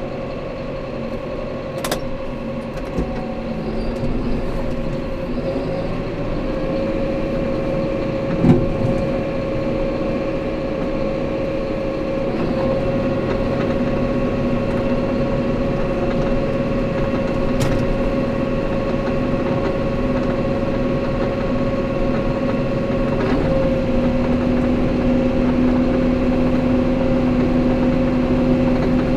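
Farm tractor's engine running steadily under way, heard from inside the closed cab, with a steady whine over the drone. A single thump about eight seconds in, and a lower hum grows stronger about three quarters of the way through.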